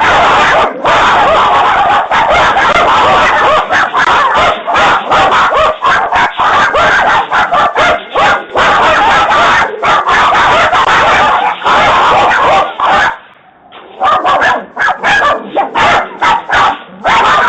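A puppy barking and yipping over and over, loud through a doorbell camera's microphone, with a brief lull about thirteen seconds in.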